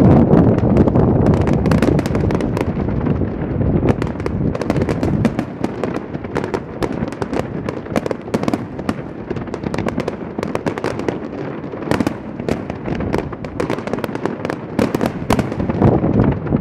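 Fireworks going off in rapid succession: a dense run of crackles and pops over a low rumble, loudest at the start and again near the end.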